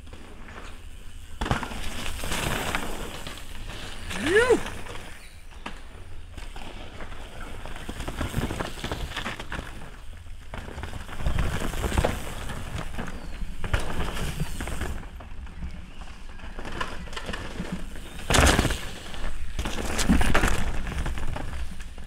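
Mountain bike tyres rolling and skidding over a dirt forest trail as riders pass close by, with crackling and rattling from dirt, roots and twigs and louder surges as each bike goes past. A brief squeal rising then falling in pitch about four seconds in.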